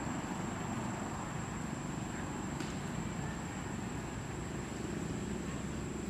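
Steady low rumbling background noise with a thin, steady high-pitched whine above it, and a faint click about two and a half seconds in; no animal calls stand out.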